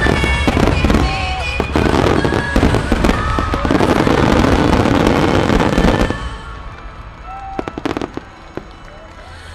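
Finale barrage of aerial firework shells bursting in rapid, dense succession, with show music playing alongside. About six seconds in the barrage thins out, leaving a few scattered bangs.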